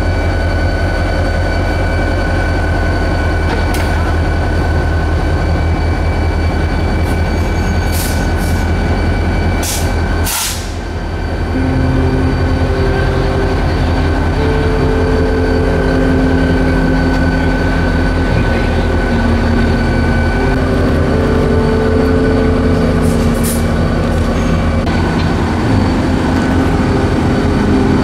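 Florida East Coast diesel-electric locomotive idling and moving slowly through a grade crossing, its engine giving a deep steady throb. A few sharp metallic clanks come before a short dip, then the engine's tones shift up and down in steps.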